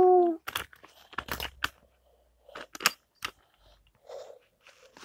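A child's loud held hoot, falling in pitch, stops just after the start. It gives way to toy train wheels clicking and knocking irregularly over the joints of a wooden Brio track.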